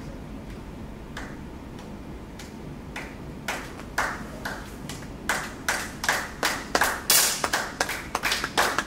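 Scattered hand claps that build into a round of applause from a small crowd: a few single claps at first, then from about halfway through faster and louder clapping.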